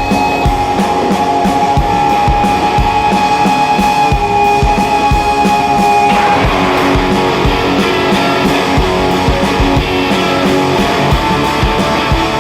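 Trailer music in a rock style: guitar over sustained tones and a steady beat. The texture changes about halfway through.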